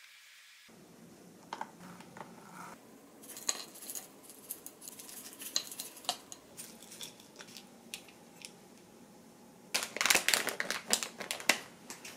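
Kitchen handling sounds: light clicks and rustling as blueberries are taken from a plastic bag and dropped onto yogurt and banana in a plastic bowl, then a burst of crinkling and clatter near the end as a paper bag of bread is picked up with the plate.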